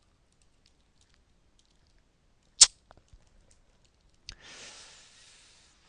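A single sharp, loud click about two and a half seconds in, then a few faint ticks. Near the end comes another click followed by a soft breathy hiss lasting about a second and a half.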